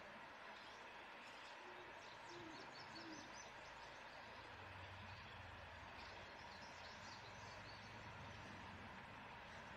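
Quiet outdoor ambience with a steady hiss. Three short, faint low hooting notes come about two seconds in, and faint high bird chirps come in two spells.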